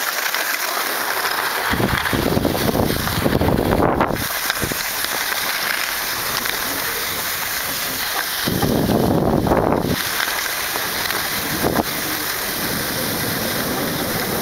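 Skis running over packed snow with a steady hiss and wind on the camera microphone. There are two louder rumbling stretches, about two seconds in and again about eight and a half seconds in.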